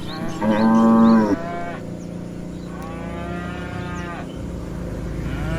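Cows mooing: a loud, low moo about half a second in lasting about a second, a fainter, higher moo around three seconds in, and another moo beginning near the end.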